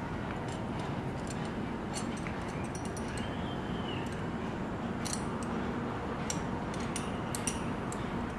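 Metal climbing hardware clicking and clinking as carabiners and harness gear are handled, in scattered sharp clicks over a steady background noise.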